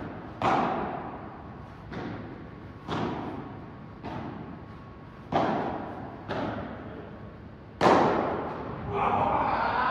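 Padel rally: the ball struck by paddles and bouncing off the court and glass walls, about seven sharp hits roughly a second apart, each ringing on in a large hall. The last hit, near the end, is the loudest, and voices follow it.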